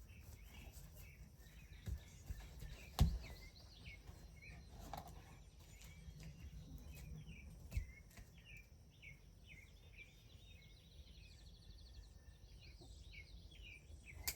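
A bird chirping over and over, short falling notes about one or two a second, over a low outdoor rumble. A few knocks, the loudest a sharp one about three seconds in.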